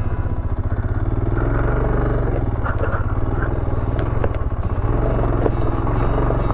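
Royal Enfield Himalayan's single-cylinder engine running at low revs with a steady low pulsing beat, with light clicks and clatter over it; it eases off briefly about four and a half seconds in.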